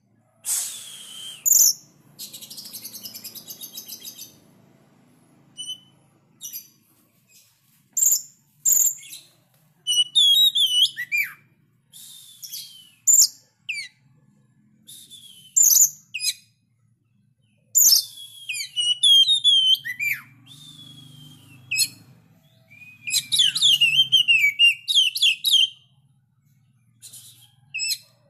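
Caged Oriental magpie-robin singing actively in sharp, varied whistled phrases with fast trills, broken by short pauses.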